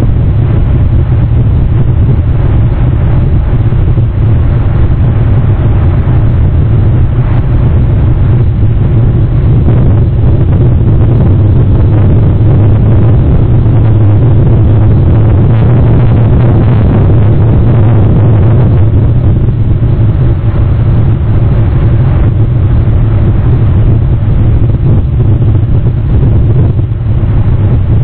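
Wind noise on an outdoor camera microphone: a loud, steady low rumble with a hiss above it.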